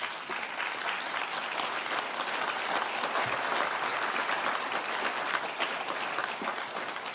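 An audience in a hall applauding, steady clapping of many hands.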